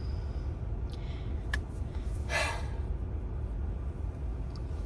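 Steady low road and engine rumble inside a moving car, with one audible breath about two and a half seconds in.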